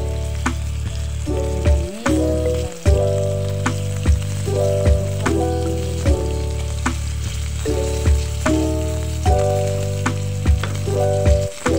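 Dried fish frying in hot oil in a pan, sizzling with scattered sharp pops, under background music with steady sustained chords, a strong bass and a regular beat.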